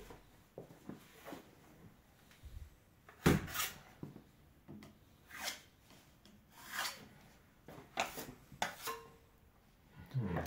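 Scattered rubbing and scraping strokes at irregular intervals, with a sharp knock about three seconds in.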